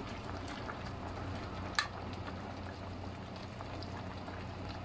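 Kimchi-beef soup simmering in a metal pot while a metal ladle stirs through the leeks, with one sharp clink of ladle on pot about two seconds in. A steady low hum runs underneath.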